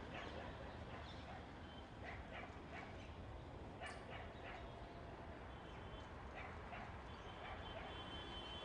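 Faint outdoor ambience with short, scattered distant animal calls, a few of them in quick succession.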